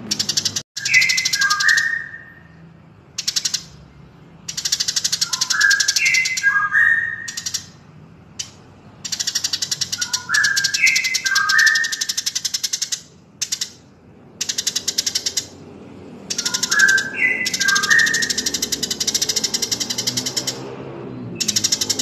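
Bird-song training recording mixing Eurasian tree sparrow and white-rumped shama. Long bursts of very fast, high-pitched ticking trills alternate with short phrases of three or four clear whistled notes stepping down in pitch, and the whistled phrase recurs about every five seconds, four times.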